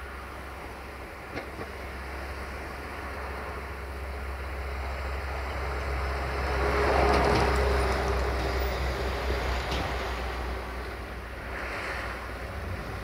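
Road traffic passing: a vehicle's noise swells to a peak about seven seconds in and fades, with a smaller pass near the end, over a steady low rumble.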